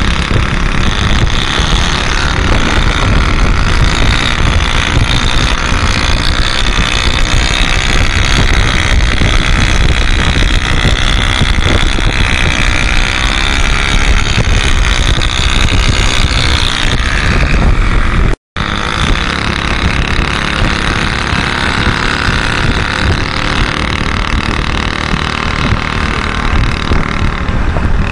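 Small motorcycle engines running at speed, mixed with heavy wind rumble on the microphone. The sound cuts out for a moment about two-thirds of the way through.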